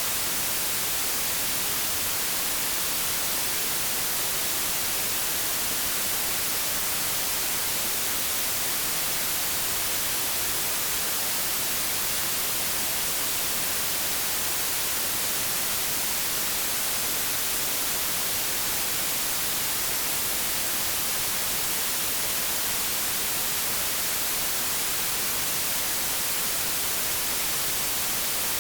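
Steady white noise: an even, unchanging hiss like TV or radio static, brightest in the highs.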